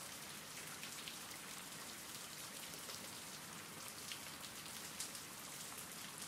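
Steady rain falling, with single drops ticking here and there.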